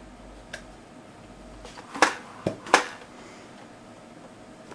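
Spring-plunger Nerf gun fired at a perforated metal screen: three sharp clacks close together about two seconds in, as the gun goes off and the dart smacks into the screen.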